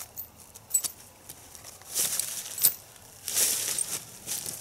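Rustling and crunching of dry leaves and frozen ground as a dog-proof raccoon trap is worked into the ground by gloved hands, in a few short bursts with a sharp click about two and a half seconds in.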